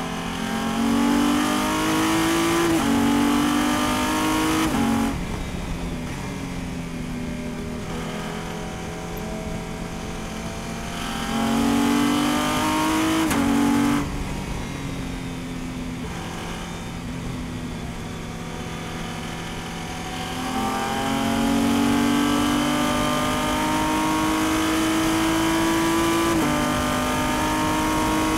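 Race car engine heard from inside the cockpit, pulling hard through the gears with quick upshifts where the rising note drops suddenly. It eases off about 5 s in and again about 14 s in, then builds from about 20 s in, upshifting into the top gears at full throttle.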